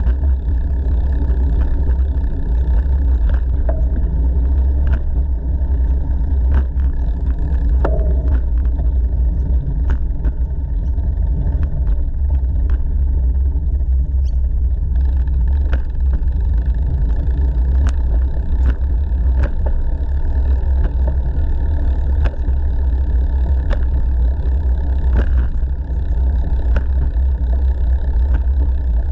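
Steady low rumble of wind buffeting an action-camera microphone and bicycle tyres rolling on a concrete path. Scattered light clicks and knocks from the bike run through it.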